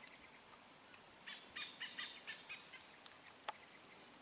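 Steady high-pitched insect chorus, with a quick run of short ticks or chirps about a second in and a single tick a little later.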